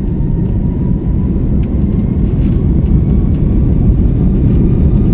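Airbus A330-300 jet engines at takeoff power heard inside the cabin, a deep steady rumble from the takeoff roll that grows slowly louder.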